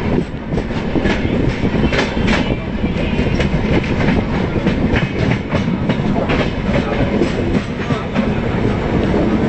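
Rajdhani Express coaches rolling along the track, heard from an open coach doorway: a steady loud rumble with repeated clicks of the wheels over rail joints and points, several in quick succession about two seconds in.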